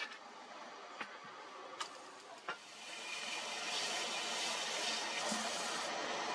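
Sandpaper pressed against a wooden knife handle spinning on a lathe, making a steady hiss that starts about halfway through. Before that it is quieter, with a few light knocks.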